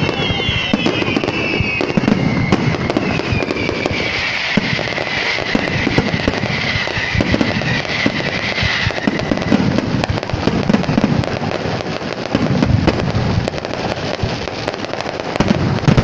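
Fireworks display: a dense, unbroken run of bangs and crackling, with high whistles sliding in pitch over the first half that die away about nine seconds in.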